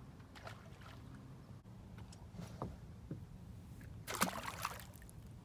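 A fish dropped back into the water with one short splash about four seconds in, after a few light knocks on the boat.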